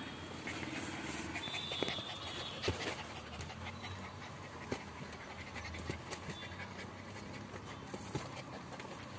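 Puppies panting and scuffling up close, with scattered sharp clicks and knocks as paws scrabble against a plastic basket.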